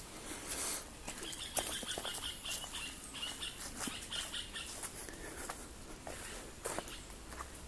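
A small bird calling with a quick run of short, high, repeated notes for about three seconds, over scattered rustles and clicks.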